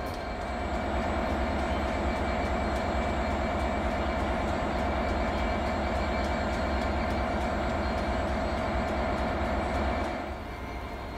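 EWS Class 66 diesel-electric locomotive running light at low speed, its two-stroke EMD diesel engine giving a steady low rumble with a steady whine above it. It gets louder about a second in and drops off near the end.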